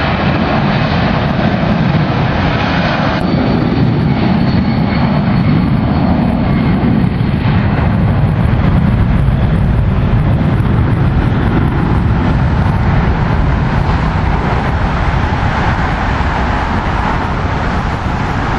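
Boeing 757's twin turbofan engines at takeoff thrust: a loud, steady jet roar as the airliner rolls down the runway and climbs away. The sound changes abruptly about three seconds in.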